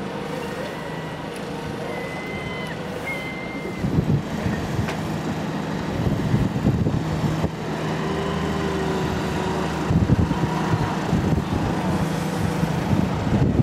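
Truck-mounted mobile crane's engine running steadily under the load of lifting a yacht, getting louder about six seconds in. Short low buffets break in about four and ten seconds in.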